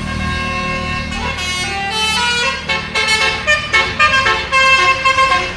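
Bus telolet horn, a multi-tone musical horn, playing a melody of toots that step between pitches over the low running of the bus engine. In the second half the notes become short and choppy.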